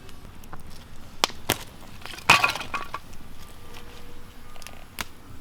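Firewood cracking and snapping: a few sharp single cracks and one louder splintering snap about two seconds in.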